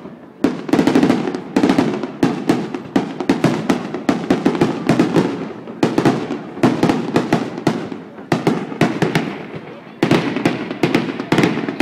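Aerial fireworks display: a rapid, unbroken barrage of bangs and crackles from shells bursting overhead, several a second.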